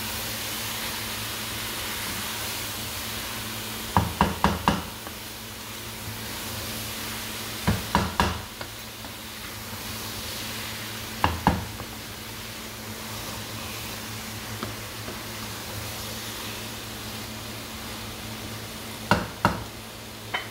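Wooden spatula stirring a dry keema, potato, cauliflower and pea curry in a wok, over a soft steady sizzle of frying on low heat. Four short runs of sharp knocks, two to four at a time, as the spatula strikes the pan.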